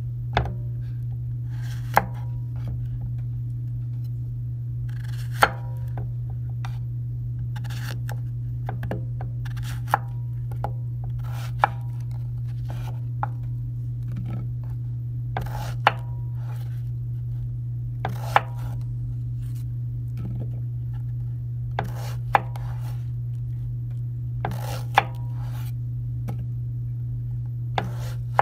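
Kitchen knife cutting through zucchini and knocking on a wooden cutting board, a sharp knock every one to two seconds, over a steady low hum.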